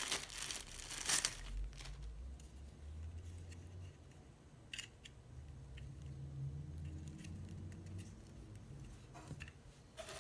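Clear plastic packaging bag crinkling as it is handled in the first second or so, followed by quieter rustling and a few light clicks of parts being handled in a cardboard box.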